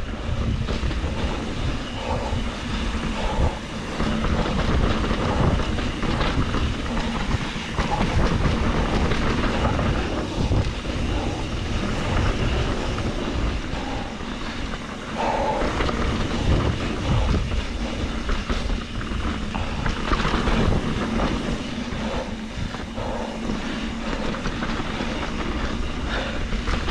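2021 Trek Slash 7 mountain bike riding down a dirt flow trail, heard close up through an action camera: tyres rolling over dirt under a continuous rattling rumble from the bike.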